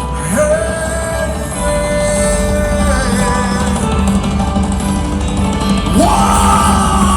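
Live rock band playing a slow passage, with a wordless vocal wail held over sustained chords; about six seconds in, the voice slides up to a higher held note.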